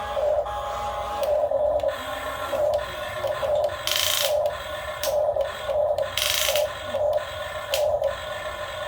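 Small electric motors of an RC excavator whining in short repeated pulses as it is worked, with two brief bursts of hiss about four and six seconds in.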